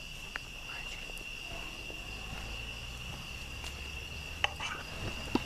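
Steady high-pitched chorus of night insects, with a few sharp clicks near the end.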